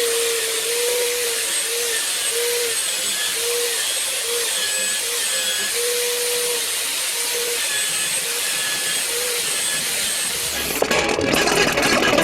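Buffing wheel motor running with a steady whir and a whine that wavers in pitch, used with white compound to buff and strop a knife edge and remove burrs. Near the end the sound turns louder and rougher.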